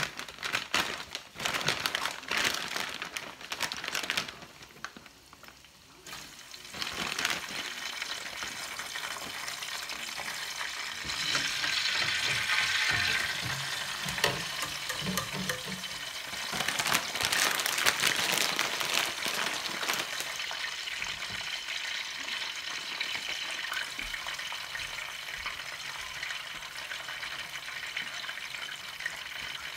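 Crab cakes frying in olive oil in a skillet: a steady sizzle with sharp crackles and pops at the start, swelling louder twice along the way.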